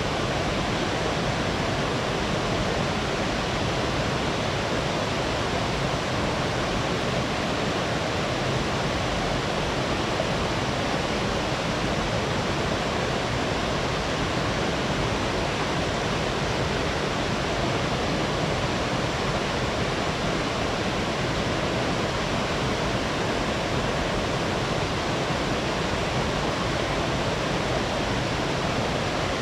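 Waterfall on a stream, water pouring and splashing in a steady, even rush.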